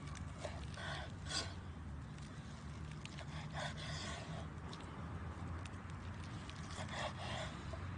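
A long knife sawing through cooked meat and scraping on a wooden cutting board, in short strokes that come in groups of two or three with pauses between.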